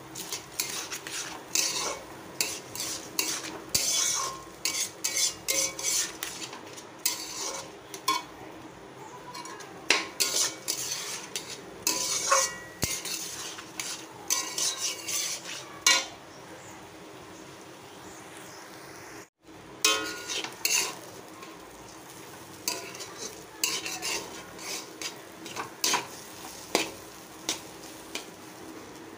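Spatula stirring and scraping raw rice, potato and tomato around a metal kadai, dry-frying the rice with spices for khichdi: quick, irregular scrapes against the pan, with a short break a little after two-thirds of the way through.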